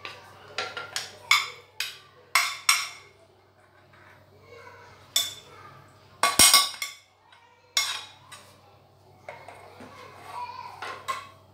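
Wooden spoon knocking and scraping against a small saucepan as filling is scraped out: a run of sharp knocks in the first few seconds, the loudest clatter about six seconds in as the pan is tipped, and one more knock near eight seconds.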